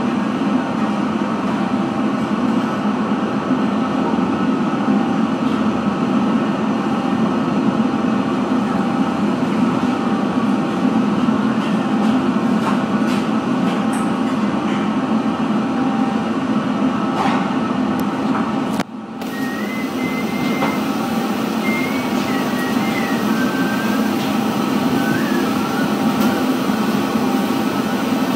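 Steady, loud machinery hum and rush of commercial kitchen equipment running, heaviest in a low band. It drops out for a moment about two-thirds of the way through, then carries on with faint high wavering tones over it.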